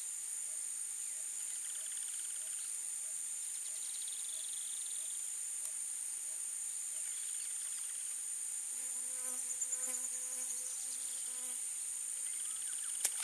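Steady high-pitched chorus of insects that runs unbroken throughout. A faint regular ticking, about two or three a second, sits under the first half. A brief lower droning tone with several pitches comes in about two-thirds through.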